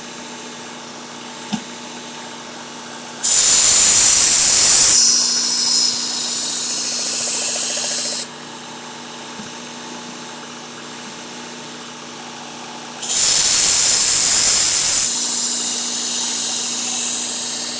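Work Sharp Ken Onion Edition belt sharpener, fitted with the Blade Grinding Attachment, running with a steady motor hum. A chef knife's edge is drawn across the abrasive belt twice, about three seconds in and again near the end. Each pass is a loud, hissing grind lasting about five seconds, harshest at its start. These are further passes to raise a burr along the whole edge.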